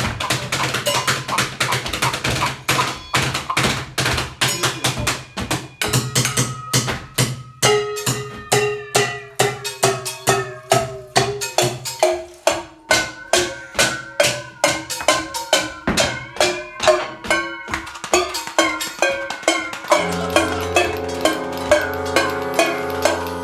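Improvised percussion music: a fast, even stream of sharp struck hits. Pitched notes join in and step up and down about a third of the way through. Near the end, a layer of held chords and bass comes in under the hits.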